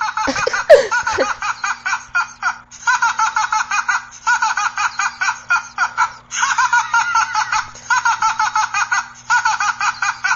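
A recorded laughing sound clip played through laptop speakers: a high, rapid, pulsing laugh in long bursts with short breaks. There is a brief louder sound just under a second in.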